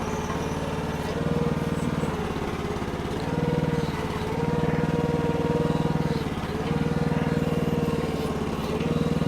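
Small gasoline engine of a Red Rock mini towable backhoe running steadily while its hydraulics are worked. Its pitch sags briefly and recovers several times as the boom and bucket take load.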